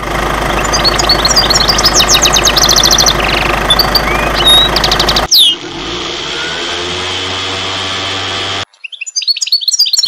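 Sound effects of birds chirping over a steady engine for about five seconds, then a sudden cut to a lower, steady engine running, likely a truck engine, then birds chirping on their own near the end.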